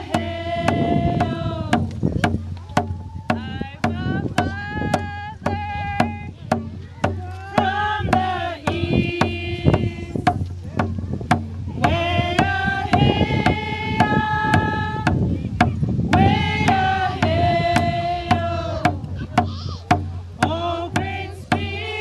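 Group of women singing together in phrases with short pauses, to a steady beat on a frame hand drum struck with a beater, about two beats a second.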